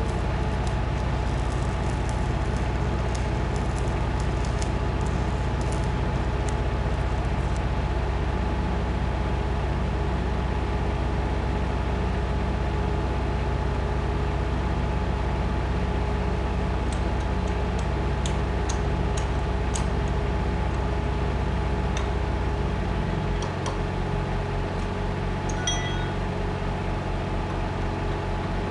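Heavy machinery running with a steady mechanical hum, with scattered light metallic clicks. The lowest part of the hum changes to a pulsing beat about two-thirds of the way through.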